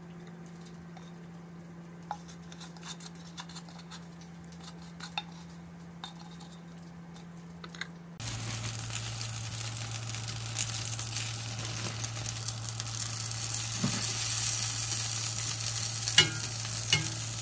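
Food sizzling in a hot pan, with a few light clinks of utensils. The first half is quieter, with a low steady hum. About eight seconds in, the sizzle suddenly becomes louder.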